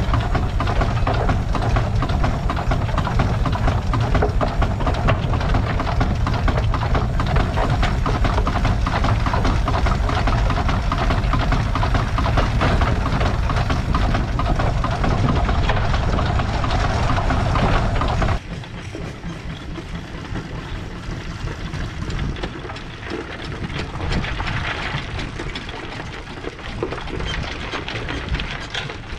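A 3/4-scale Case 65 hp steam traction engine running as it is driven, heard from the operator's platform as a loud, steady mechanical din. About 18 seconds in, the sound drops suddenly to a quieter, more distant version of it.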